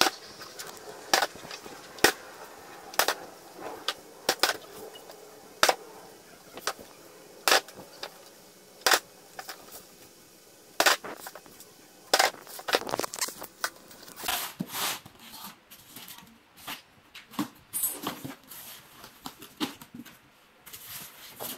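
A packed cardboard carton holding an MDF cabinet, dropped again and again onto a hard floor: a sharp thud roughly once a second. In the last third come denser, lighter clicks and crackles of cardboard being handled and the box opened.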